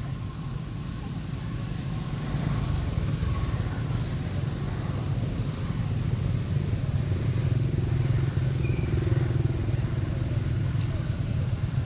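Steady low rumble, getting louder about two and a half seconds in.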